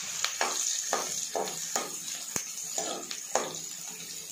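Chopped onions sizzling in hot sesame oil in a kadai: a steady frying hiss with many scattered crackles, while a metal spoon stirs them.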